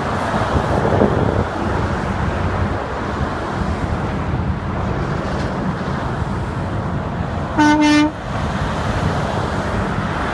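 Steady road and wind noise from a vehicle moving at highway speed, broken once toward the end by a short, single-note horn blast of about half a second.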